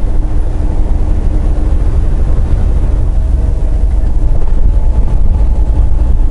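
Semi truck driving at highway speed: a steady low engine and road rumble heard from inside the cab.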